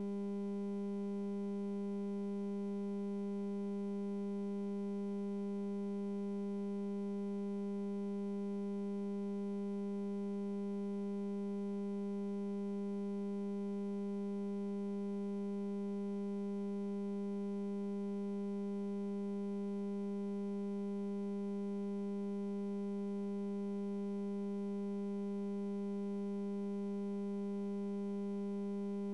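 A steady electronic buzzing tone: one unchanging low note with a row of overtones, starting abruptly and holding at the same level without a break.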